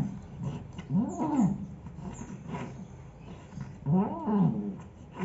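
An animal crying out twice, each a drawn-out call about half a second long that rises and then falls in pitch, about three seconds apart.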